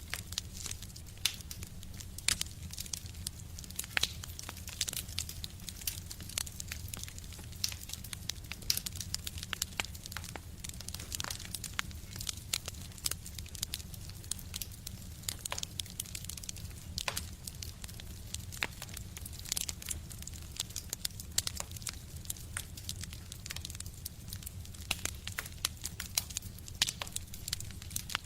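Fire burning in a stove, crackling with frequent irregular sharp pops over a low steady rumble.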